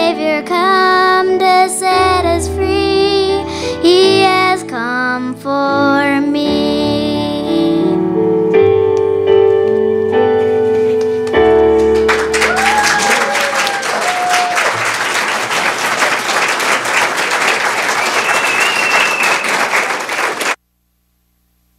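Voices singing a song with instrumental accompaniment, ending in long held notes, followed by an audience applauding. The applause cuts off suddenly near the end.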